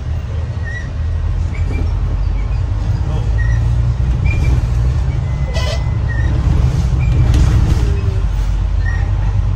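Street traffic: a steady low rumble of passing vehicles, likely including a bus, with short high chirps now and then and a brief sharp sound about five and a half seconds in.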